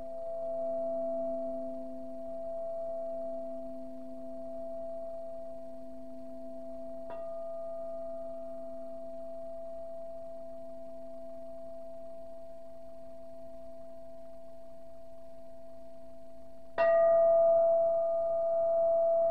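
Frosted quartz crystal singing bowl, tuned to C, ringing on in a long steady hum. There is a light tap about seven seconds in. Near the end it is struck firmly with its mallet and rings out louder, with brighter overtones.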